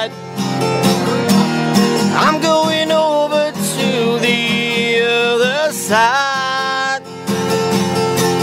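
Country song with acoustic guitar strumming under long held, bending lead notes, between sung lines.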